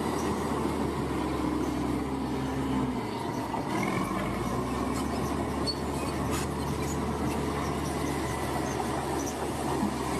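Heavy diesel machinery running steadily with a low engine rumble, dipping briefly about three seconds in.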